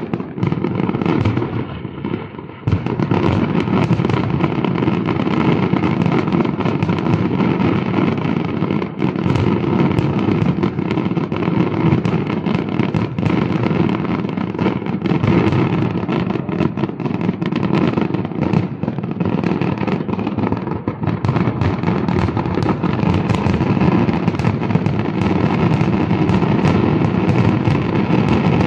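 Fireworks display: a dense, continuous barrage of shell bursts and crackling, with a brief lull about two seconds in.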